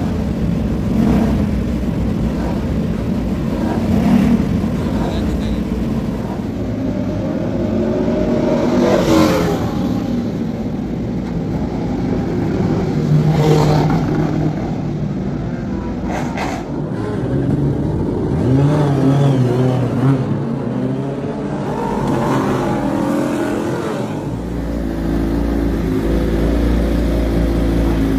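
Racing superbike engines revving and passing at high revs, the pitch rising and falling several times, with voices in the background. A steady low hum sets in over the last few seconds.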